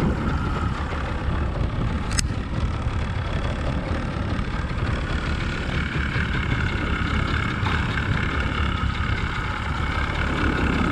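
A small boat's motor running steadily at low speed over a constant low rumble, with a faint steady whine higher up that strengthens about halfway through. A single sharp click about two seconds in.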